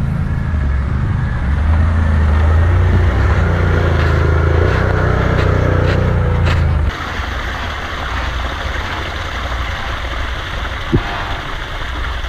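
ATV engines running and revving under load. About seven seconds in, the engine sound cuts off abruptly and leaves a quieter steady rushing noise, with one sharp knock near the end.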